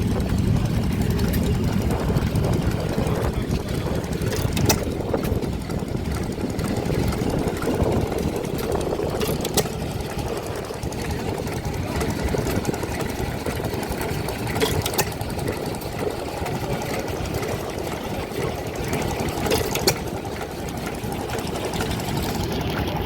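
Vintage stationary engines running steadily, with a sharp click or knock standing out about every five seconds.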